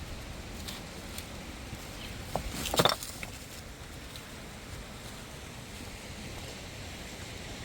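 Steady outdoor noise with a few faint ticks, and one brief sharp knock just under three seconds in, the loudest sound here.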